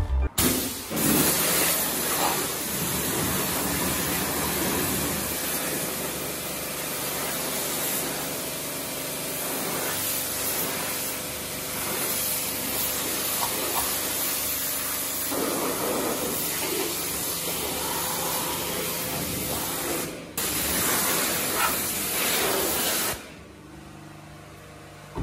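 Pressure-washer wand spraying water onto a car's bodywork, a steady hiss. It breaks off briefly about twenty seconds in and falls away near the end.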